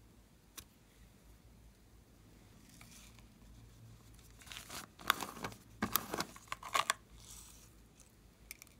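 A small plastic container being opened and plastic star sequins tipped out into a hand: sharp plastic clicks and crinkly rustling, loudest in the middle, with a few small clicks near the end.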